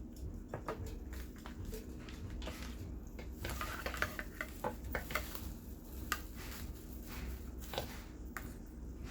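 Cutlery and dishes clinking and tapping in short scattered clicks while a roasted chicken is handled, busiest around the middle, over a steady low hum.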